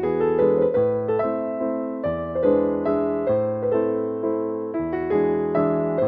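Instrumental music: a piano playing a gentle, flowing melody over a low bass line, with notes struck several times a second.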